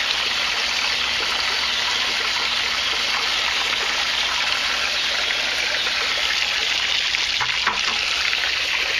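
Water splashing steadily from a pipe running into a full plastic bucket and from the bucket's overflow pouring over its lip into the aquaponics tank below.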